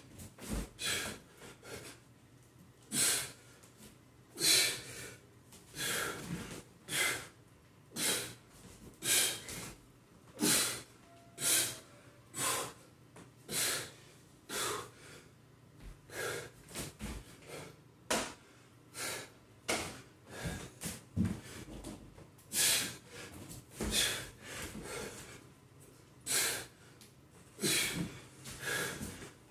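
A man breathing hard and forcefully from the exertion of a burpee and kettlebell swing and squat circuit: sharp, noisy breaths in and out, roughly one a second.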